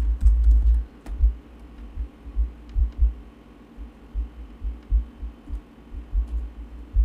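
A steady low electrical hum with irregular dull low thumps and a few faint clicks, from typing on a computer keyboard and clicking a mouse at a desk.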